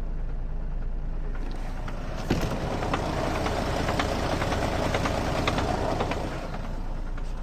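Mercedes Sprinter diesel engine idling, with a knocking rattle full of irregular clicks that sets in about a second and a half in and eases near the end, while the idle speed hunts. This is the knock of a worn dual-mass flywheel, which goes quiet when the clutch is pressed.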